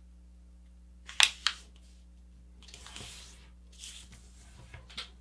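A sheet of printer paper being folded and handled by hand: two sharp, crisp crackles about a second in, then softer rustles of the paper being moved and smoothed.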